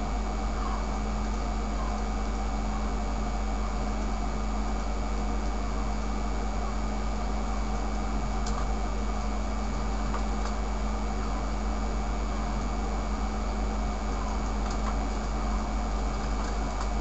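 Steady electrical hum and hiss with a constant low drone and a steady tone, unchanging throughout, with a few faint clicks about eight and ten seconds in.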